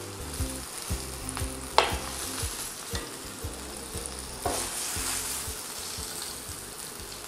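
Food sizzling on a hot grill pan as metal tongs lift the pieces off, with one sharp metal clink of the tongs about two seconds in and a louder swell of sizzling about halfway through. Soft background music with a steady beat plays underneath.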